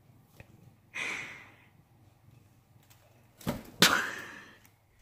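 Wire basket rattling and scraping on a granite countertop as a cat scrambles out of it: a softer rustle about a second in, then two sharp clatters near the end, the second the loudest.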